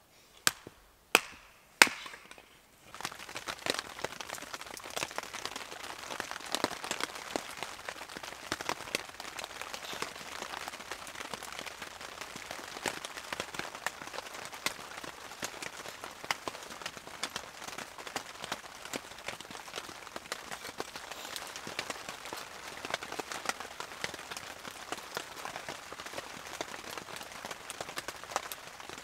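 Three sharp chops of a hatchet splitting spruce wood in the first two seconds. Then a fire of split spruce logs crackles steadily, with frequent small pops.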